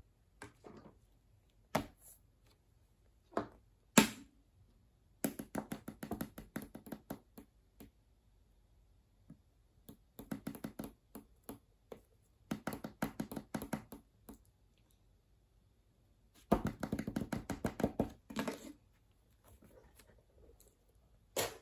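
Toys being handled and set down on a sheet of paper on a table: scattered knocks and taps, the loudest about four seconds in, and four bursts of quick clicking and rustling.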